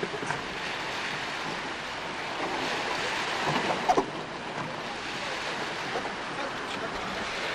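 Small surf washing up onto a sandy beach, a steady rush of breaking water. A few short knocks come about halfway through.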